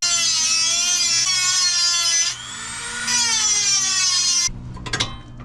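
Handheld power tool running, its motor whining at a steady high pitch. The whine dips for about a second midway, as if under load, and cuts off suddenly.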